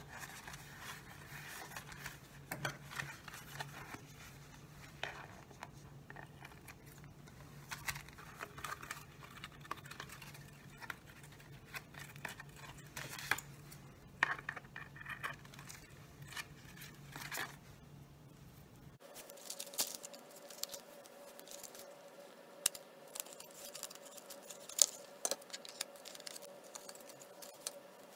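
Electrical tape being pulled off the roll and pressed along the edge of a clear plastic soda-bottle face shield: faint scattered crinkles, clicks and small taps of tape and thin plastic being handled.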